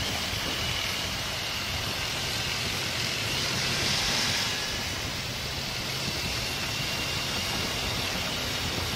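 Steady riding noise of a Honda ST1300 Pan European motorcycle cruising at about 50 km/h, heard from a helmet camera: wind and road rush over a low, even hum from the V4 engine, with a slight swell of wind hiss about four seconds in.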